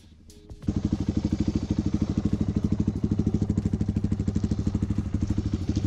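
Suzuki DR350's single-cylinder four-stroke engine idling through a SuperTrapp exhaust, a steady rapid thump of exhaust pulses at about a dozen a second. It cuts in abruptly less than a second in and holds an even pace without revving.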